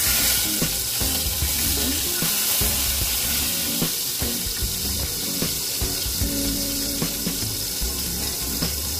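Ginger slices sizzling in hot canola oil in an aluminium pot, a steady frying hiss that starts abruptly as they hit the oil.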